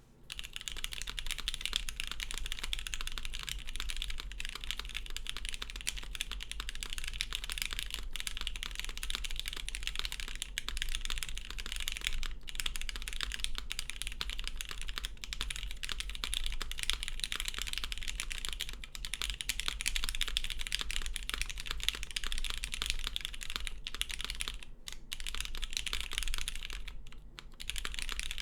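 Fast, continuous typing on a custom mechanical keyboard with lubed vintage Cherry MX Black linear switches in an aluminum plate on an O-ring mount, under CRP Tulip keycaps: a subtle clack from each keystroke, with a couple of brief pauses near the end.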